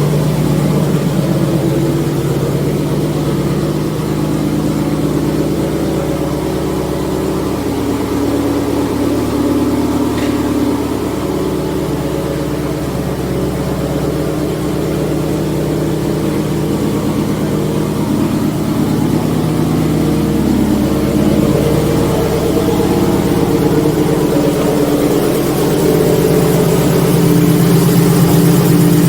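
Subaru STI's turbocharged flat-four engine idling steadily through its Tomei exhaust, which is leaking at a joint where carbon has built up.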